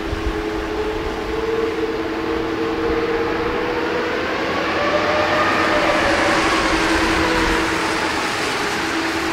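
Boeing 747-400's four Pratt & Whitney PW4056 turbofans running as the jet rolls out on a wet runway after landing. Their whine rises in pitch and loudness to a peak a little past the middle, then falls away, over a steady hum.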